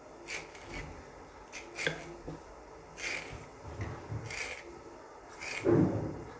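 Small kitchen knife drawn through thick rolled dough and scraping on a stone rolling board as the dough is cut into strips: a series of short separate strokes, the loudest near the end.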